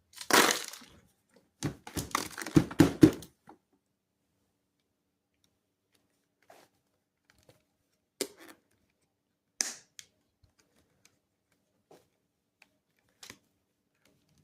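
Hard plastic clattering and knocking for the first few seconds, then a handful of single clicks and knocks spread apart, with the vacuum's motor not running: the parts and attachments of a handheld vacuum being handled.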